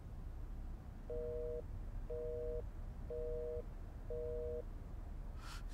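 Telephone busy signal: four evenly spaced two-tone beeps, each about half a second long, one a second. The line is engaged and the call is not getting through.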